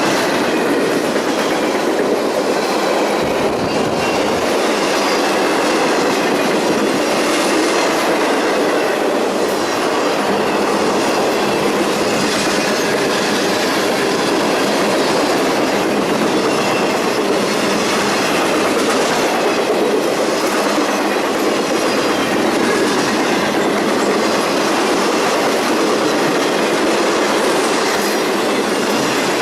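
Freight train cars rolling steadily past, their wheels clacking over the rail joints.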